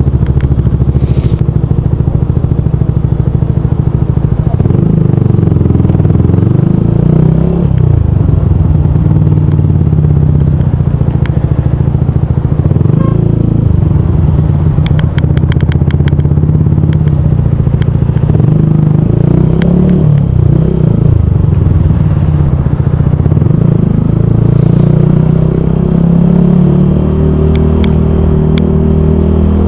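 Yamaha YZF R125's single-cylinder four-stroke engine running under way, its note rising and falling several times as the revs change. A few brief sharp clicks.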